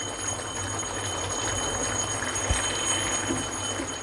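Chicken curry sizzling and bubbling steadily in oil in a pan as the meat is slow-fried in its masala, a steady hiss with a faint high whine over it. A brief low knock about halfway through.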